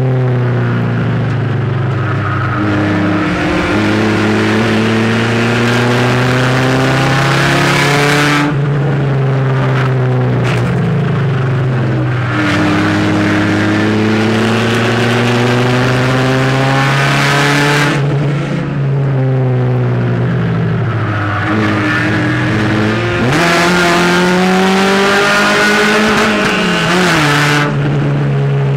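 A race car's engine heard from inside the cabin under racing load. Its pitch climbs steadily for several seconds, then drops sharply, three times over.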